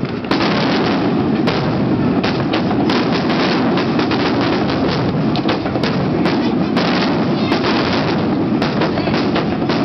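Fireworks display: a dense, continuous barrage of aerial shell bursts, with sharp bangs several times a second over a steady rumble of overlapping explosions.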